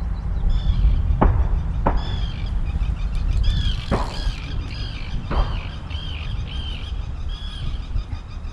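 A bird calls over and over in a run of short arched high notes, one every half-second or so, over a low rumble of wind on the microphone. Four sharp clicks come in the first half.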